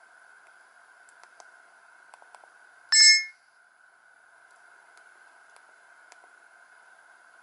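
A Samsung GT-E2100 mobile phone's speaker gives one short electronic beep, several tones at once, about three seconds in. Under it there is a faint steady hiss and a few light clicks.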